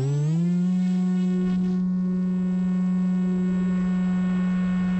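Brushless electric motor and 7x5 propeller of a Teksumo foam flying wing, heard from a camera on board. Its whine finishes climbing in pitch in the first half second as it comes up to speed, then holds a steady pitch.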